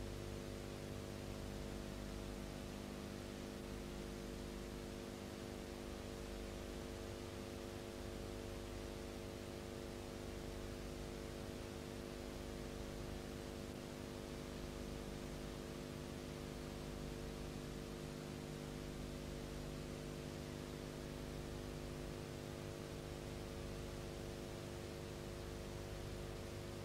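Steady electrical hum with hiss and no other sound: the background noise of a silent film's transfer, which has no soundtrack.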